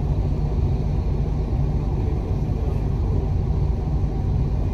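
Steady low engine and road rumble of a moving double-decker bus, heard from its upper deck.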